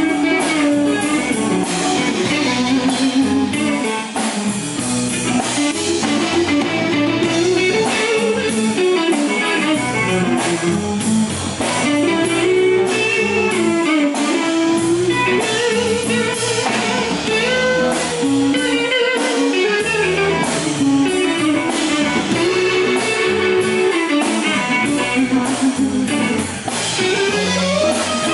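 Live blues band playing an instrumental passage: a lead electric guitar line that climbs and falls in pitch, over bass guitar and drums.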